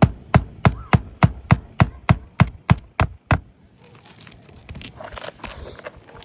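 A hammer driving a roofing nail through an asphalt shingle: a quick run of about a dozen evenly paced blows, about three a second, stopping about three and a half seconds in, followed by a few faint knocks.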